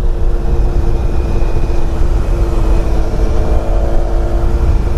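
Motorcycle cruising at road speed: a heavy rumble of wind on the microphone with a steady engine hum underneath.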